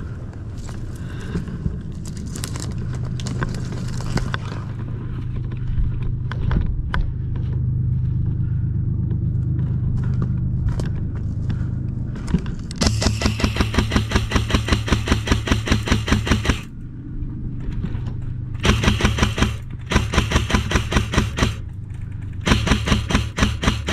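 A steady low rumble with scattered clicks, then, about halfway through, three long bursts of rapid, evenly spaced shots from an electric airsoft gun firing full-auto.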